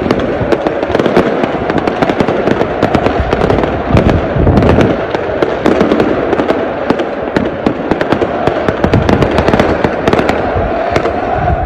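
Fireworks and firecrackers going off in dense, rapid volleys: many sharp cracks and bangs over a continuous crackling din.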